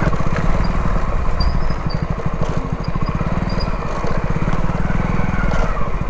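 Motorcycle engine running steadily as the bike rides along a dirt track, with a fast, even putter.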